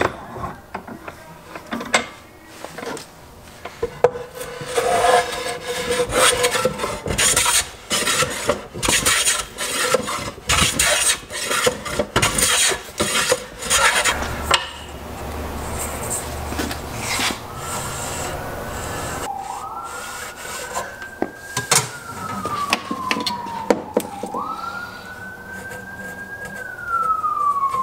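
Rapid back-and-forth abrasive strokes worked by hand along the edge of an alder board, through the first half. Then a siren wails, rising and falling in long sweeps.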